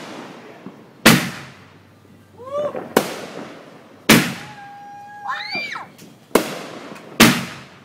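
Aerial fireworks exploding, five sharp bangs in about eight seconds, each with a trailing echo. Between the bangs come a held whistle and several whistles that rise and fall.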